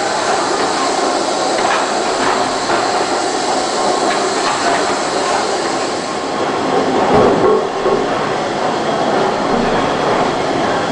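Gimson steam beam pumping engines running: a steady mechanical clatter from the valve gear and motion, with a few louder knocks, the strongest about seven seconds in.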